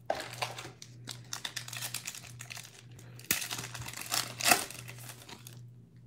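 Foil wrapper of a Panini Prizm basketball card pack crinkling and tearing as it is opened by hand, in irregular crackles with a sudden louder one about three seconds in.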